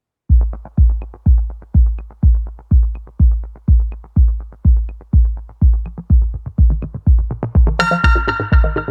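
Electronic dance music with a steady kick drum beating about twice a second; a bright crash and synth chords come in near the end.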